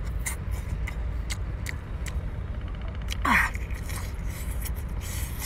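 Close-up eating sounds of a man biting and sucking on crab legs and shell: scattered sharp clicks and smacks, with a short falling hum a little past three seconds in. A steady low rumble runs underneath.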